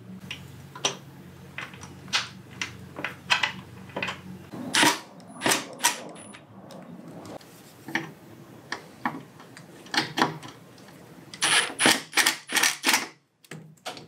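Scattered sharp clicks and knocks of wood and metal as a slatted wooden table is handled and fixed to a metal glider-chair frame, with a quick run of knocks near the end. A low steady hum underlies the first few seconds.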